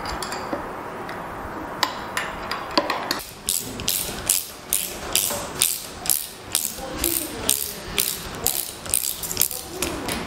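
Socket ratchet wrench clicking as it backs out a front fork top mounting bolt: a few scattered clinks, then from about three seconds in a steady run of sharp clicks, about three a second.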